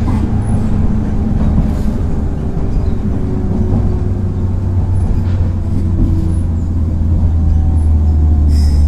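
JR 103 series electric train standing at the platform, its underfloor equipment giving a steady low hum with faint whining tones above it. A brief hiss comes near the end.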